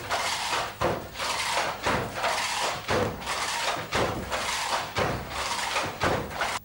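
Wooden foot-treadle handloom being worked: regular heavy knocks about once a second as the beater strikes the cloth, with wooden clatter from the treadles and shuttle between.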